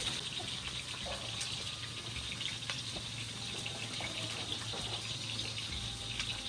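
Oil sizzling steadily in a wok as sliced food deep-fries over a wood fire, with occasional sharp pops and crackles.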